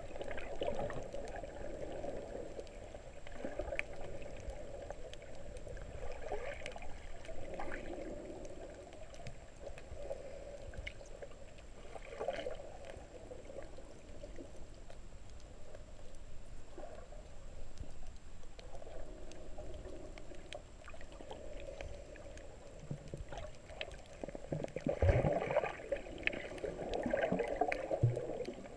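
Muffled underwater water movement and bubbling from a snorkeler's camera held below the surface, swelling and fading every few seconds and loudest near the end.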